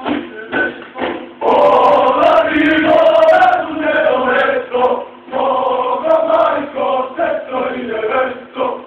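Male voices chanting together in a choir, holding sung notes that swell loudest about a second and a half in and again past the middle.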